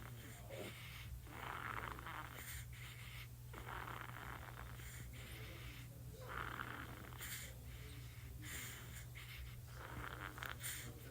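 Sleeping newborn baby snoring, a noisy breath roughly every second and a half.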